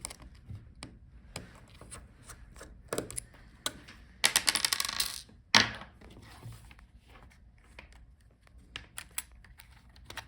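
Small clicks, taps and clinks of hand tools and small laptop parts being handled while the fingerprint reader board is taken out. There is a quick run of rapid clicks about four seconds in, then a sharp click.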